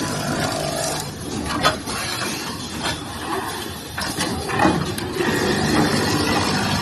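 Automatic towel sewing machine running, a steady mechanical clatter with a few sharp clicks and knocks at irregular moments.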